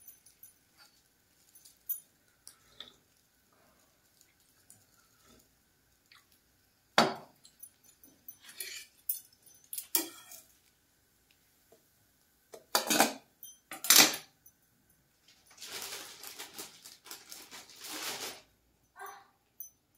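Stainless steel kitchen utensils and bowls clinking and knocking on a counter and stovetop: scattered sharp clinks with quiet gaps between them, then a few seconds of continuous noisy handling near the end.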